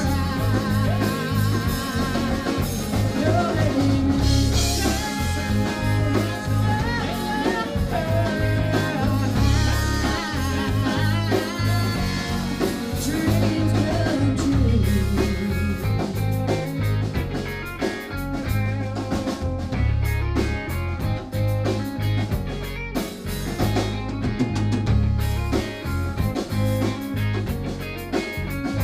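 Live band playing a blues-rock song: electric guitar, keyboard and drum kit with a steady beat, and a woman singing into a microphone.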